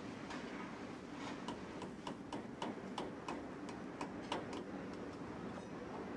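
Light ticking clicks, about three a second, over a steady low hum.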